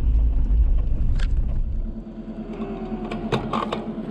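Vehicle engine running: a loud low rumble for about two seconds, then quieter and steady with an even pulsing, and a few sharp clicks near the end.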